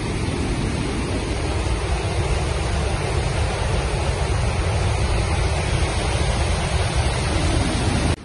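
Water rushing and churning as it pours through a dam's open spillway gates in a heavy flood release: a loud, steady noise weighted toward the low end.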